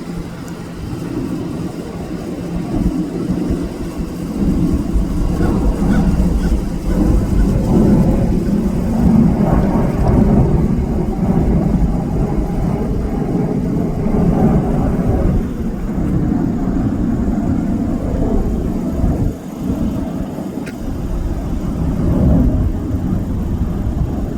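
Jet engine rumble of a Boeing 747-8F freighter's four GEnx-2B turbofans, swelling about four seconds in and staying loud.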